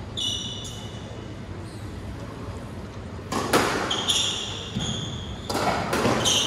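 Squash rally: the ball is struck by rackets and smacks off the walls in sharp knocks, about three and a half seconds in and again near five and a half, while court shoes squeak on the hardwood floor near the start and in the middle.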